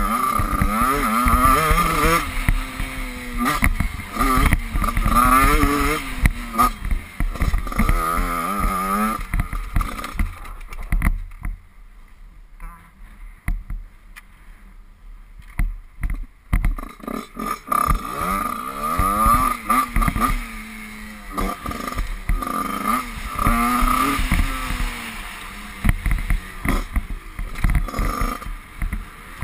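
Husqvarna motocross bike engine revving up and down as it is ridden on a dirt track. About eleven seconds in it drops to a quieter idle for several seconds, then revs up again.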